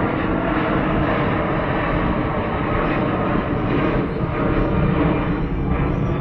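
Jet airliner's engines running close by: a loud, steady rush with a few whining tones layered over it.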